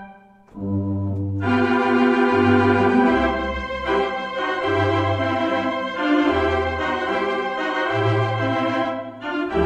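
Allen Q321-SP digital theatre organ with a Morton voicing suite, played on manuals and pedals. After a short break near the start, a new passage begins with low pedal bass notes changing about once a second. Full sustained chords join in about a second and a half in.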